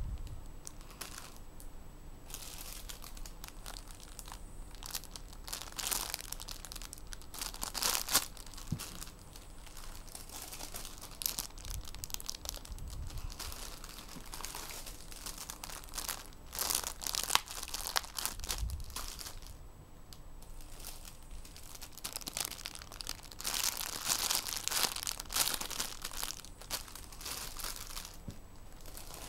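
Clear plastic packaging bags around squishy toys crinkling in irregular bursts as the bagged toys are handled and shifted on the pile.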